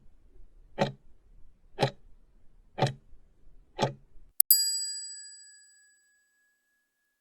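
Quiz countdown-timer sound effect: a clock ticking once a second, five ticks, then a bright bell-like ding about four and a half seconds in that rings on and fades out, signalling that the answer time is up.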